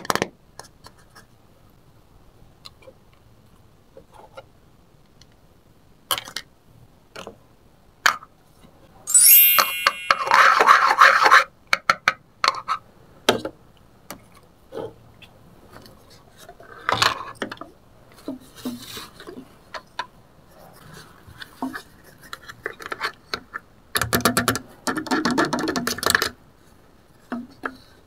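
Small plastic toy kitchenware being handled and set down: scattered clicks, taps and rubbing of little plastic bowls, pots and utensils, with a louder rush of noise about ten seconds in and another near the end.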